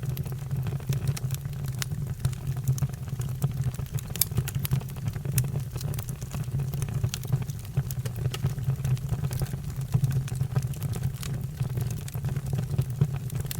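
Wood fire burning: a steady low rumble with scattered sharp crackles and pops throughout.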